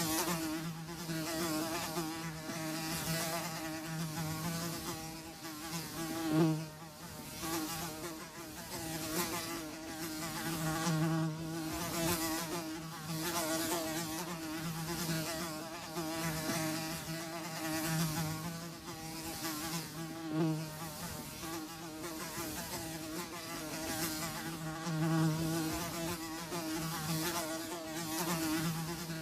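Several houseflies buzzing continuously, the buzz swelling and fading as they fly near and away.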